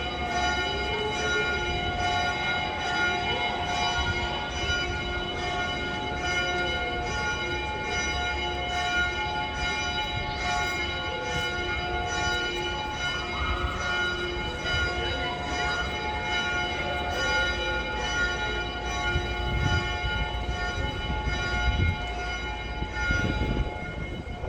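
Church bells ringing on and on, their overlapping tones hanging in the air, with faint voices of people in the street underneath.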